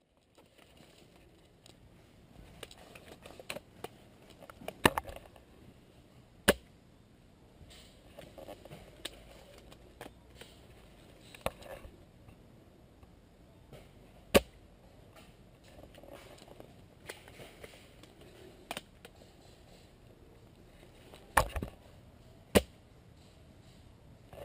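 Airsoft guns firing single shots: sharp cracks a few seconds apart, five loud ones and several fainter.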